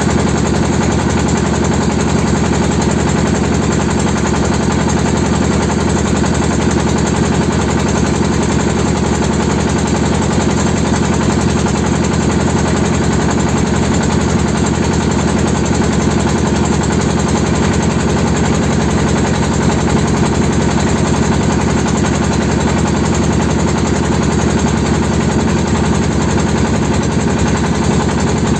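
Engine of a pompong, a small wooden river motorboat, running steadily: a loud, fast, even beat that does not change.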